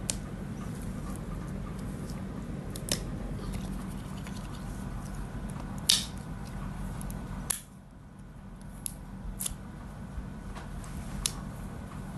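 Short, sharp clicks and snaps from a stretchy silicone frog toy being handled and stretched, scattered over a steady low hum; the loudest comes about six seconds in.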